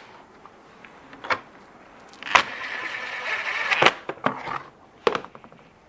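DeWalt 20V cordless impact driver running for about a second and a half as it drives a screw into a sheet-metal printer pan, its motor whine steady then ending with a sharp click as the screw seats. Scattered clicks and knocks of the screw and panel being handled come before and after.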